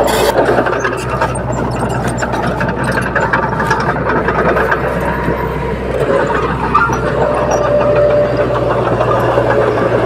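Diesel engine of a small crawler bulldozer running steadily under load as it pushes soil, with the clatter and clank of its steel tracks.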